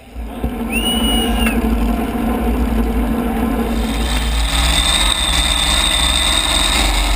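The supercharged engine of a modified pulling tractor idling steadily, heard from the machine itself. A steady high whine joins about halfway through.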